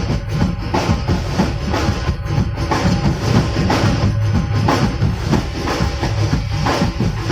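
Loud music with a steady drum beat and heavy bass, played through a venue sound system during a sound check.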